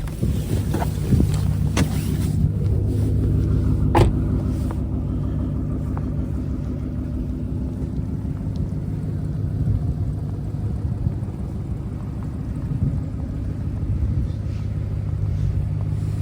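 Ford Mustang S197 engine running with a steady low rumble while driving, heard from inside the cabin, with a single sharp click about four seconds in.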